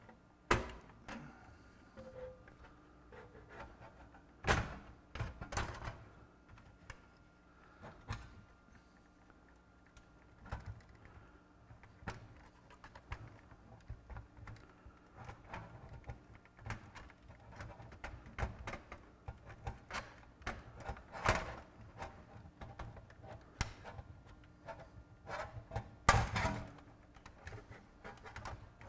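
Irregular clicks, knocks and clatter of plastic and metal parts as the flip door on a Pioneer PD-DM802 magazine CD changer's mechanism is worked by hand, with a few louder knocks among them.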